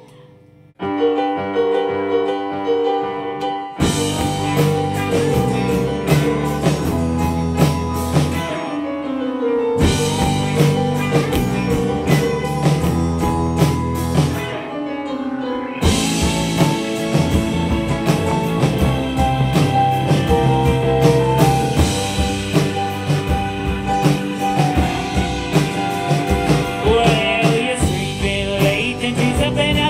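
A rock song with guitar and drum kit. It opens quietly, the full band comes in about four seconds in, and the song drops out briefly twice before carrying on.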